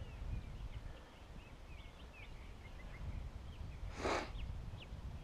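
Outdoor ambience of birds chirping faintly in many short, quick notes over a low steady rumble, with one brief rustle about four seconds in.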